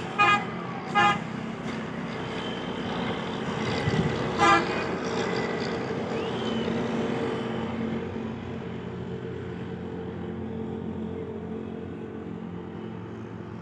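A vehicle horn gives three short honks, two close together at the start and one about four seconds later, over the steady low hum of passing road traffic.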